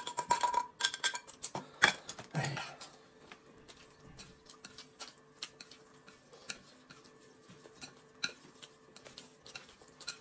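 Small clicks and taps of a spoon in a tin can and chopsticks on a plate as noodles are mixed with sauce. They are busier and louder in the first three seconds, then thin out to sparse ticks.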